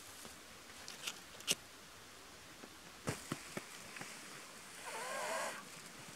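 Dry twigs and dead conifer needles crackling and snapping as they are handled and piled for a fire lay. There are a few sharp snaps about a second and a second and a half in, a quick cluster around three seconds, and a brief wavering squeak near five seconds.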